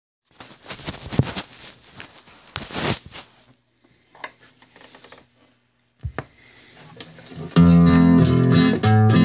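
Handling noise of a phone being moved and set up: rustles and knocks, then a few faint clicks and a thump. About two seconds before the end, an acoustic guitar starts playing, with chords ringing loudly.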